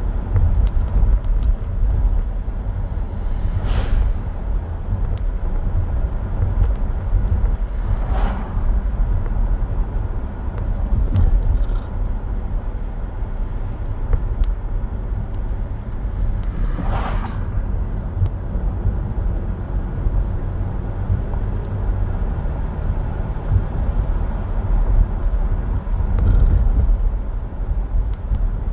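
Car cabin noise while driving on a wet road: a steady low rumble of tyres and engine, broken three times by a brief swish.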